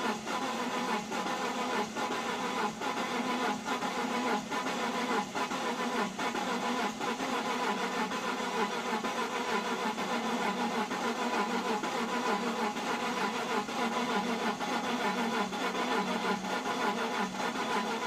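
BMW Z4's starter cranking the engine continuously without it firing: a crank-no-start after the car sat in the cold for three weeks.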